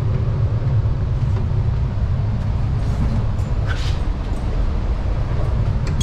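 Driverless Sydney Metro train running along the track, heard from inside the front of the carriage: a loud, steady low rumble, with a few faint ticks and a short hiss about four seconds in.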